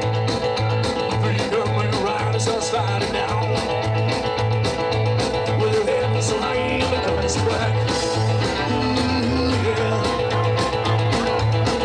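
Rock and roll band music with guitar, singing and a steady bass beat about twice a second.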